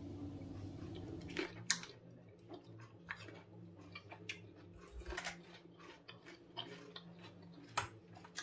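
A spoon stirring thick, creamy sauce in a porcelain sauce boat, with irregular light clicks and taps against the china. A low steady hum stops about a second and a half in.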